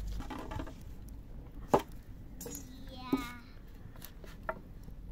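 Three sharp clinks and knocks of cookware or utensils being handled, the loudest about two seconds in. A short wavering voice is heard a little after three seconds.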